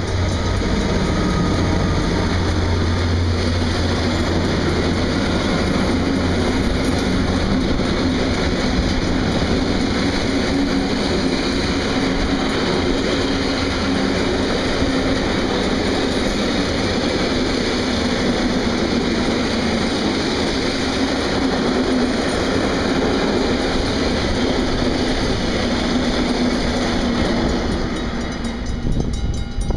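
A DB Class 6400 diesel-electric locomotive's engine hums as it passes close in the first few seconds, then a long train of lime hopper wagons rolls past with steady wheel-on-rail noise and clatter. The sound drops off near the end as the last wagon goes by.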